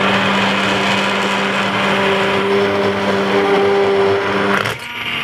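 Hand-held immersion blender running in a pot of creamy sweet potato soup, puréeing it: a steady motor hum over a noisy churn, dipping briefly near the end before carrying on.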